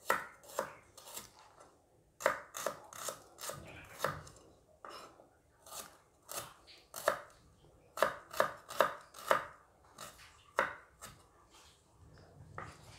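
Kitchen knife slicing shallots on a wooden cutting board: an irregular run of sharp knocks as the blade meets the board, about two or three a second, with short pauses between runs.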